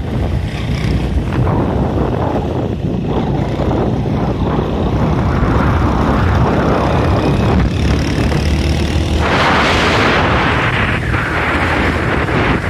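Small motorcycle engine running while riding, with wind rushing over the microphone; the wind hiss grows louder about nine seconds in.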